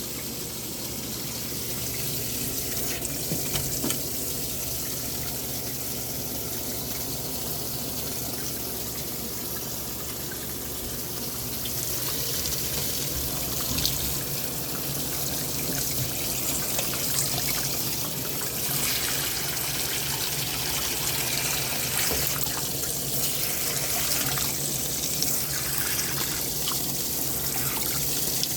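Water running into a washing machine as it fills, a steady rushing hiss.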